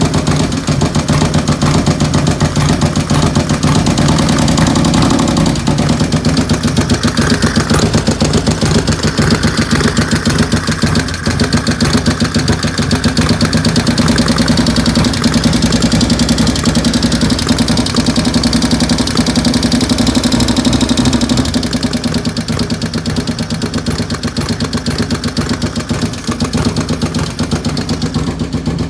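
A 95-cubic-inch engine with 510 cams idling, with a fast, even ticking running through it that the owner calls a nasty ticking noise. It drops a little in level about three quarters of the way through.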